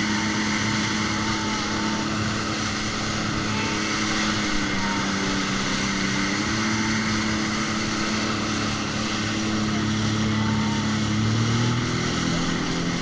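Jet ski engine running with a steady pitch over a constant rushing noise; the pitch rises a little near the end.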